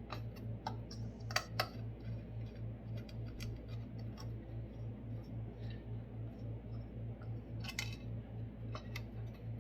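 Scattered sharp clicks and taps of a screwdriver and small parts being handled, the loudest about a second and a half in and again near the end. Under them runs a low hum that pulses about three times a second.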